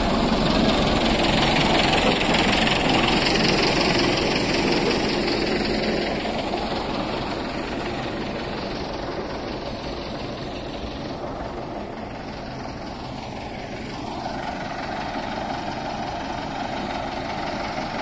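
Diesel engine of a steel-drum road roller running steadily as it compacts loose stone chips. It is louder for the first six seconds or so, then continues a little quieter.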